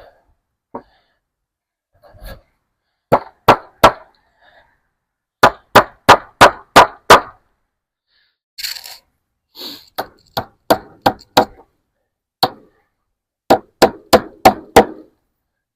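A hammer driving fence staples in to hold wire fencing, in quick runs of sharp knocks about three to four a second: three, then six, then a few more, with a brief rustle in the middle.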